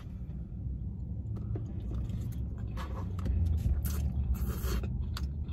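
Eating noodles from a plastic takeout tray: a plastic fork scrapes and clicks against the tray, and the mouthful is taken in and chewed, with short irregular clicks and a denser noisy stretch a little past the middle. A steady low rumble runs underneath.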